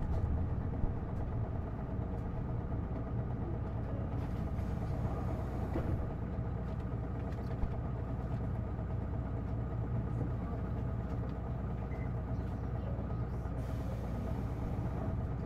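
Isuzu Erga city bus's straight-six diesel engine heard from inside the cabin, running at a steady low speed with no change in pitch.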